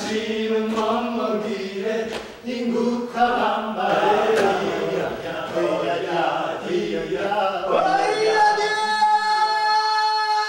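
A choir of voices singing or chanting in phrases, settling about eight seconds in into one long held chord.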